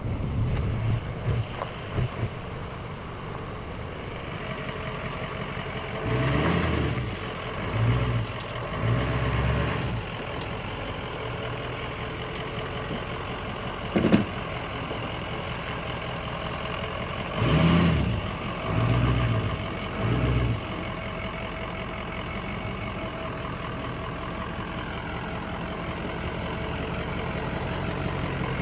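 A vehicle's engine running steadily, rising briefly three times about six seconds in and three times more around seventeen seconds in. There is a sharp knock about halfway through.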